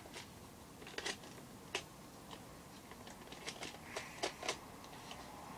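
Foam darts being pushed one by one into a plastic Nerf magazine clip: a string of short, irregular plastic clicks, several coming close together near the end.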